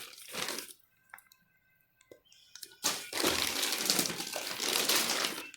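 Plastic shipping bag of betta fish being handled: a short crinkle at the start, then after a quiet pause about two and a half seconds of continuous crinkling noise.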